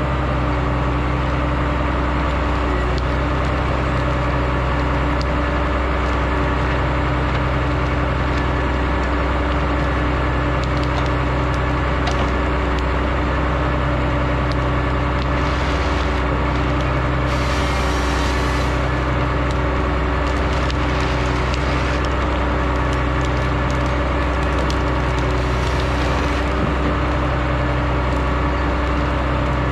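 Diesel engine of a converted Rottne H20 forestry machine running steadily at close range, its low hum swelling and fading about every two seconds. Short stretches of wood cracking and splintering come through around the middle and again later, from the harvester working timber.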